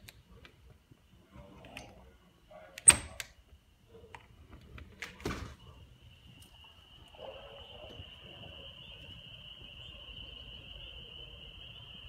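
Two sharp knocks, the first much the louder, then from about halfway a steady high-pitched chorus of calling animals that holds on.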